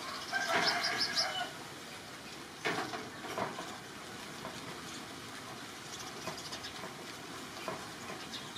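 Short high-pitched animal calls: a quick cluster of chirps about half a second in and another brief call near three seconds, over a steady background hiss.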